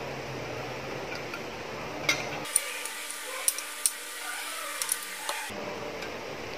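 A handful of light clicks and taps from small parts of a flat iron being handled during disassembly, over a steady background hum.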